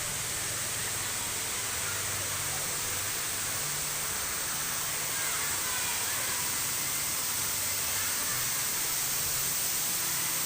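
Waterfall pouring down at full flow, a constant, even rushing hiss.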